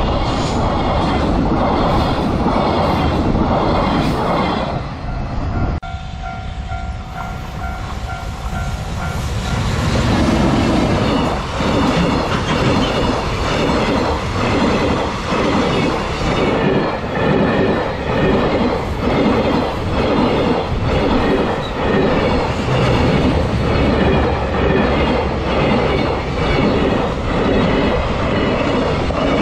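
Freight train wagons passing close by, wheels clattering over rail joints in a steady repeating rhythm. There is a brief quieter stretch with a steady whine about six seconds in.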